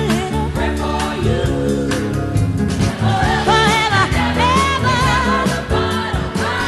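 Gospel music: a singer holding wavering notes over a backing band.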